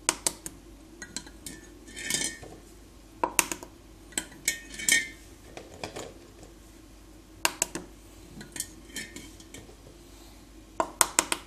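Quail eggs clicking and clinking against a glass jar as they are lightly cracked and set inside, with scattered sharp taps and a few close together near the end.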